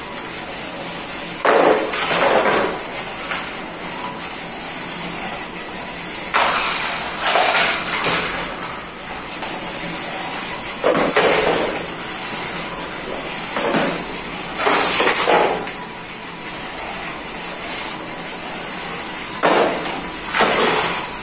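A 1 kg sumo robot's high-speed geared DC motors driving in repeated short bursts about a second long, several seconds apart, as it charges across the ring and shoves a cardboard box, with scuffs and knocks from the impacts. A steady hiss runs underneath.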